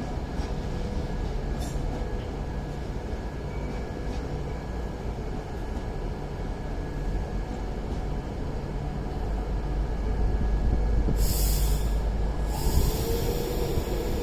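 A train moving through the station with a steady low rumble that grows louder about ten seconds in. Near the end a high hiss comes in twice.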